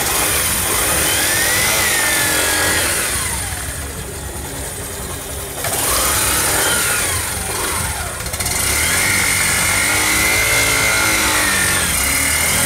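Yamaha Saluto 125's single-cylinder engine running and revving as the motorcycle pulls away, its pitch climbing and falling several times. The run tests the grip of the freshly replaced clutch and friction plates.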